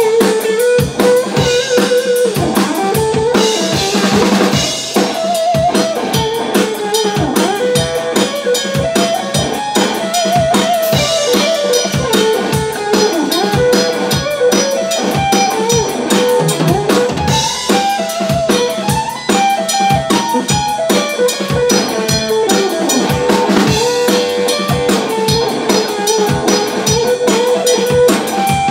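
Live instrumental blues: an electric guitar plays a lead line of held notes with wavering bends and vibrato over a drum kit keeping a steady beat on kick, snare and cymbals.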